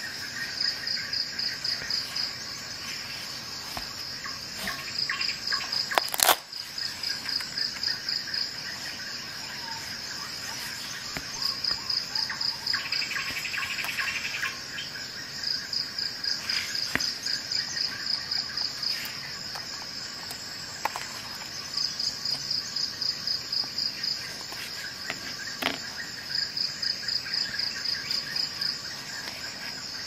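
Crickets chirping: repeated bursts of rapid high-pitched pulses every few seconds over a steady high trill. A sharp click about six seconds in, and a few fainter clicks.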